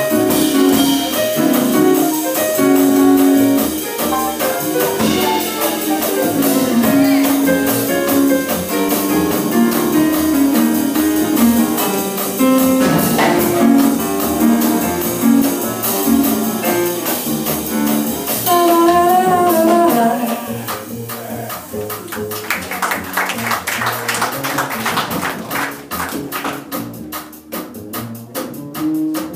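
Live jazz sextet playing, with a horn lead over piano, guitar, bass and drums. About twenty seconds in the band thins out and gets quieter, leaving drums and cymbals to the fore.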